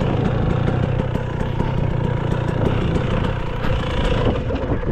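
Dirt bike engine idling steadily, its level dropping away right at the end.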